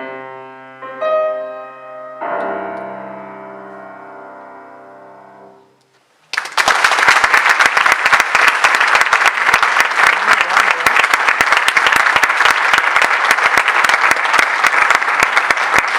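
A piano waltz ending on final chords that ring and fade away over several seconds. About six seconds in, dense applause breaks out.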